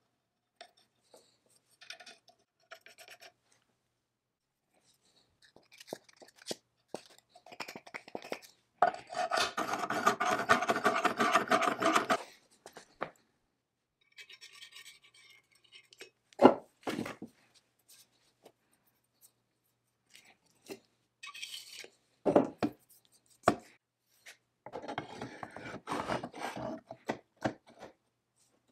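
Cast-iron and steel parts of a Foley Model 61 saw filer being handled and fitted together. There is metal scraping and sliding in a long stretch about a third of the way in and again near the end, with a few sharp knocks in between and scattered small clicks.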